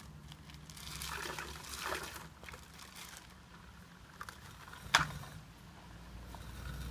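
Ice water sloshing in a plastic bucket as it is handled and hoisted up on a rope, with one sharp knock about five seconds in.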